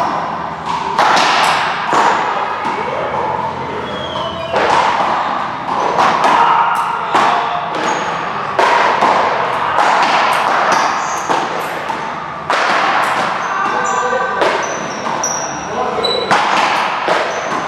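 A ball being struck and bouncing again and again, echoing around an indoor court, with players' voices between the hits.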